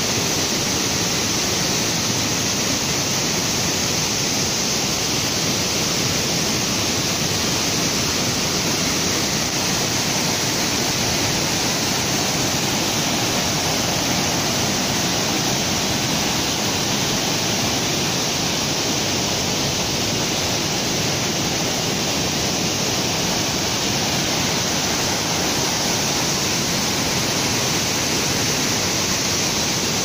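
Waterfall in full flow, white water pouring over rock ledges: a steady, unbroken rush of falling and churning water.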